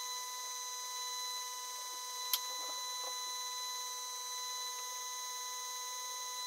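Vacuum pump running steadily with a constant whine, drawing resin through a vacuum-bagged carbon fibre layup. A single sharp click about two seconds in.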